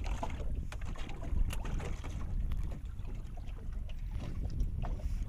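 Wind noise on the microphone and water against the hull of a small open boat. Scattered light clicks and taps come from fishing line and a hook being worked free of a caught fish.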